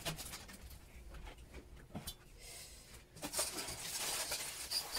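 Drink bottles clinking and knocking against each other and the shelf as they are set down in a cabinet, in scattered short clinks.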